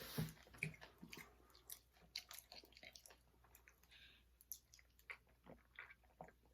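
Faint, irregular crunching as someone chews candy-coated chocolate mini eggs, the hard sugar shell cracking between the teeth.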